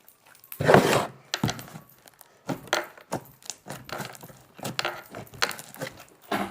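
Slime being squeezed and stretched by hand: irregular sticky squelches and crackles, the loudest in the first second.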